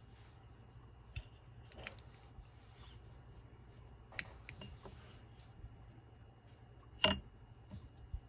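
Paper and craft tools handled on a tabletop: scattered light taps, clicks and brief rustles of a cardboard file folder being measured and worked, with one louder knock about seven seconds in.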